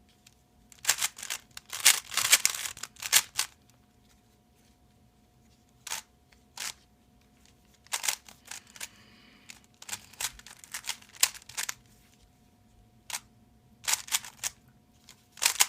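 Rubik's cube being turned by hand: quick runs of plastic clicks as the layers snap round, broken by short pauses, the longest a couple of seconds from about four seconds in.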